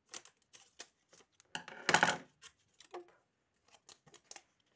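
Scissors snipping open a paper packet in short cuts, with paper rustling in the hands. There is a louder burst of rustling about two seconds in.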